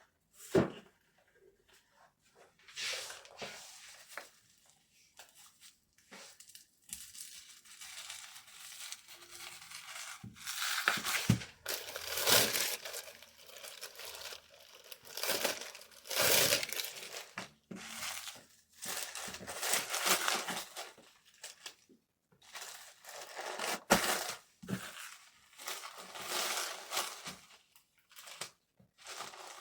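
Packing materials being handled: repeated bouts of crinkling and tearing, each lasting a second or two, with a few sharp clicks and knocks in between.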